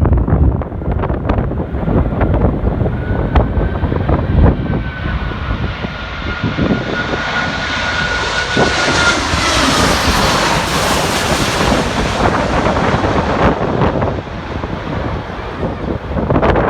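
Jet airliner passing close by: its engine noise swells to a peak about ten seconds in and then eases, with a high whine that slides down in pitch as it goes past. Gusts of wind buffet the microphone in the first few seconds.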